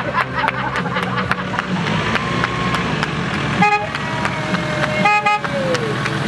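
A car horn tooting twice in short blasts, the second a little longer, over a background of voices.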